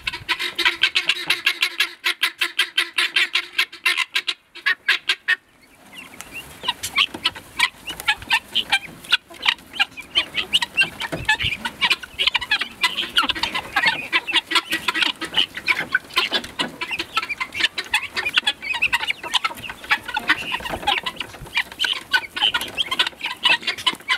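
Flock of domestic helmeted guineafowl calling: a fast, even run of harsh cackling notes for the first five seconds or so, then a busier, overlapping chorus of calls.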